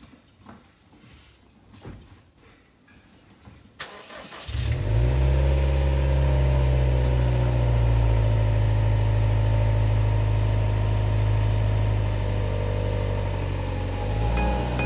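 A few faint clicks, then about four and a half seconds in the Subaru WRX STI's flat-four boxer engine cranks, catches and settles into a steady idle.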